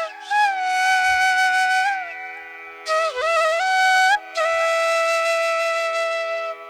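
Background music: a flute melody of long held notes that bend and slide in pitch, over a steady drone, in a Carnatic style. The melody pauses briefly about two seconds in and again around four seconds.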